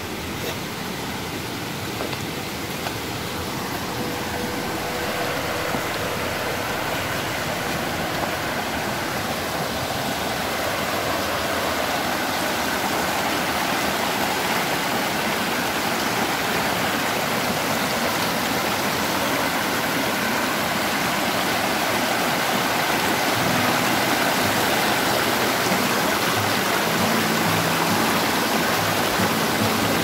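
Fast, shallow rainforest stream rushing white over rocks and boulders. It is a steady rushing that grows gradually louder as the stream is approached.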